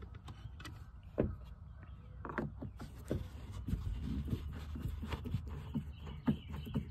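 Scattered light clicks and scrapes of a screwdriver and fingers working a screw out of plastic car door trim, over a steady low rumble.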